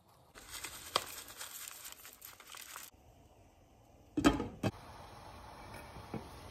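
Paper pouch of dried herbs crinkling as it is handled, for about two and a half seconds. About four seconds in, two sharp knocks as a glass lid is set on a cooking pot, followed by a faint steady hiss.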